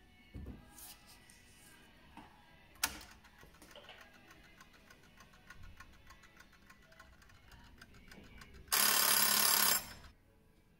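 Mechanical Smiths darkroom timer: a sharp click as it is set, then a steady ticking as it runs, then its alarm rings loudly for about a second near the end as the timer runs out.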